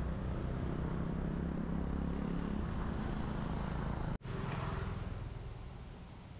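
A motor vehicle's engine running with a steady low rumble. It cuts out for an instant about four seconds in, then fades away.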